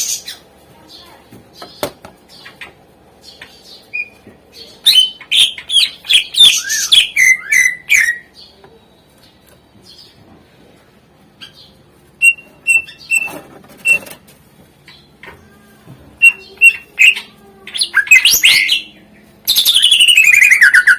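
Greater green leafbird (cucak ijo) singing a varied, mimicking song in bursts. It gives quick runs of chirps and whistles, then a string of short single notes, and near the end a loud series of fast downward-sweeping calls, with short pauses between phrases.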